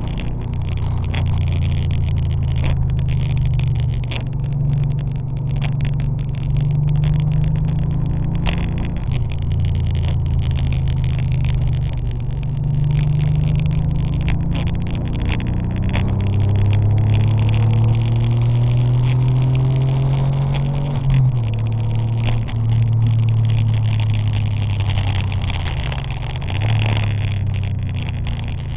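Porsche 911 (964) air-cooled flat-six engine running under load, its pitch climbing steadily as the car accelerates, then dropping sharply about two-thirds through before settling again.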